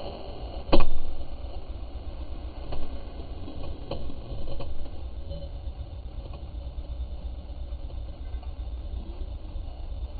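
Triumph Daytona 675R's three-cylinder engine idling with the bike at a standstill: a steady low rumble. A sharp knock about a second in is the loudest sound, and a few softer knocks follow a few seconds later.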